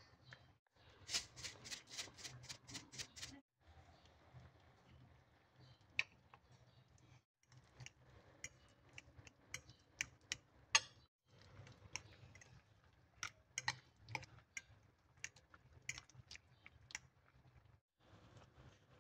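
Metal fork clicking against a glass bowl and plate while mashing grilled eggplant: a quick run of about four clicks a second for a couple of seconds, then scattered single clicks.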